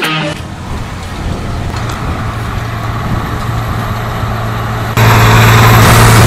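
John Deere tractor engine running steadily as it pulls a Horsch air seed drill, a low, even drone. About five seconds in it becomes suddenly much louder and closer.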